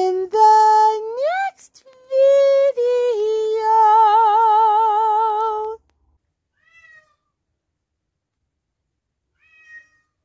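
A high voice sings a few drawn-out notes with a wobble, the last one held for about two seconds, and then stops suddenly. Two faint short calls follow later.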